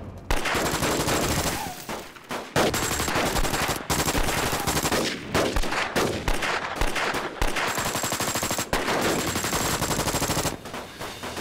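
Long bursts of rapid automatic gunfire with only brief breaks, dying down about a second before the end.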